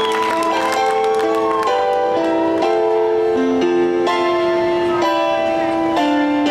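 Grand piano played solo, held notes and chords moving in a slow melodic line.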